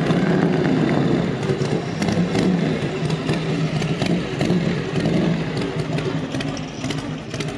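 Harley-Davidson cruiser's V-twin engine running as the motorcycle rides past at low speed.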